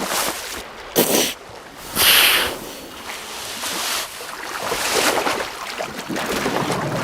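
Sea water splashing and surging, with louder rushes of splash about one and two seconds in.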